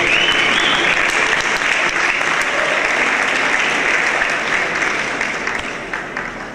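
Audience applauding in a hall, steady clapping that dies away near the end.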